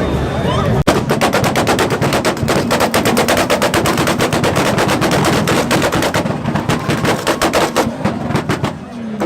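A car engine held on a two-step launch limiter, its exhaust firing a rapid machine-gun string of pops and bangs at roughly ten a second over the engine's rumble. The popping starts about a second in and cuts off just before the end.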